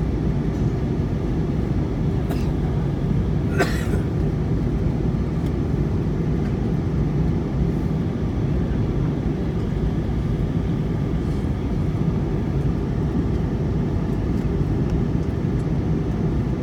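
Steady cabin noise of a jet airliner in cruise flight: a constant low rumble of engines and airflow heard through the cabin. A short click sounds about three and a half seconds in.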